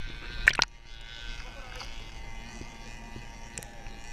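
Two sharp knocks about half a second in, then a faint steady hum with thin whining tones, muffled as through an action camera's waterproof housing at the water's surface.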